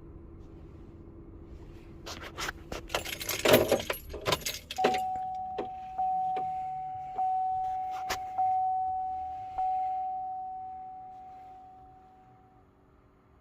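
A bunch of keys jangling for a couple of seconds, followed by a ringing chime struck about every second and a quarter that fades away.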